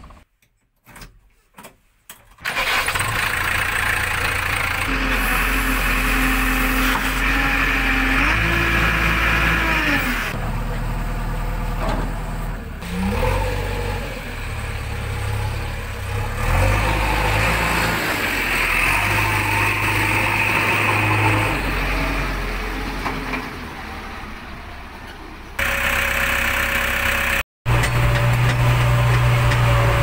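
JCB 3DX backhoe loader's diesel engine starting about two seconds in, then running and revving up and down as the machine works.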